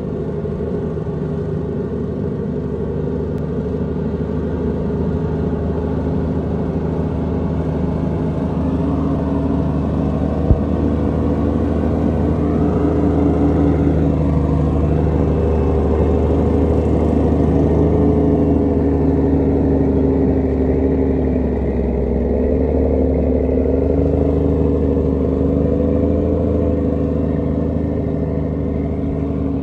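Heavy truck diesel engines running hard under load on a steep dirt hill climb: a steady low drone whose pitch wavers slowly. A single sharp click about ten seconds in.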